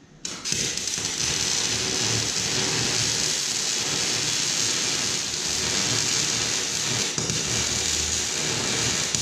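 Wire-feed welder arc crackling steadily as it welds the snowmobile's steel underside. It strikes about half a second in.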